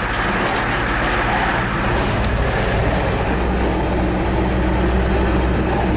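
Engine of a truck running steadily, heard from inside the cab while driving; its low note grows stronger about two seconds in.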